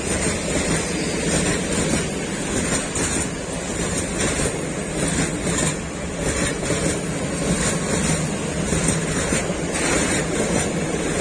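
Freight train of open coal wagons rolling past: a steady noise of wheels on the rails with occasional faint clicks.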